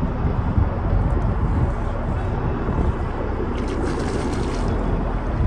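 Steady low rumble of road traffic from the bridge, with a faint splash about four seconds in as the cast lure hits the water.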